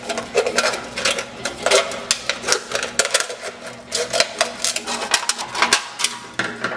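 Scissors cutting through a thin aluminum drink can: a dense, irregular run of sharp clicks and crinkling of the metal.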